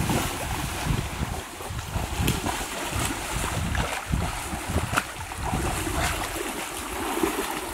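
Water splashing and sloshing as children swim and kick through a shallow stream, with a steady low rumble of wind on the microphone and a few sharper splashes along the way.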